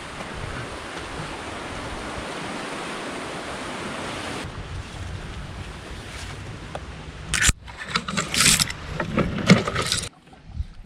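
Steady rush of fast water from a big set of river falls. Past the middle it gives way to a run of loud, irregular knocks and splashes.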